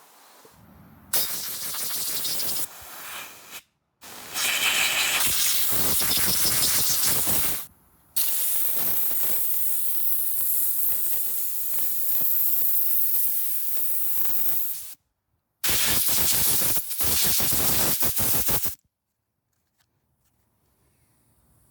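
Compressed-air blow gun blasting sawdust out of a chainsaw's bar, chain and sprocket area, in four long hissing blasts with short breaks between them.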